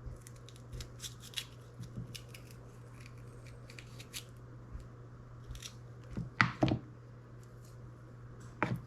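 Knife scraping the seeds out of a halved jalapeno on a cutting board: many quick small scratching and clicking strokes, with a few louder knocks about six seconds in and near the end.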